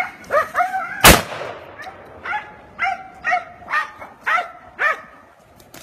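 Hunting dog barking in a run of about nine short, high yelps while on a wild boar, with one loud sharp bang about a second in.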